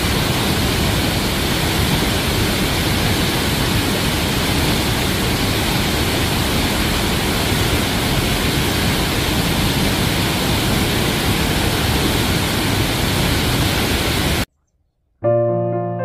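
Paraeso Falls, a 15 m waterfall, pouring into its plunge pool: a loud, steady rush of falling water. It cuts off suddenly near the end, and piano music starts.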